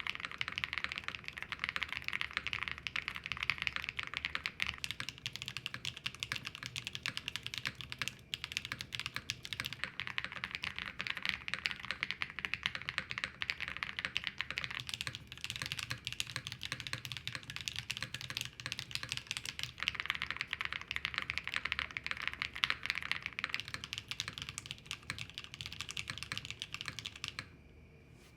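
Fast, continuous typing on a GDK Lab NV70 custom mechanical keyboard: a dense run of keystroke clicks and clacks, with a brief pause about eight seconds in, that stops shortly before the end.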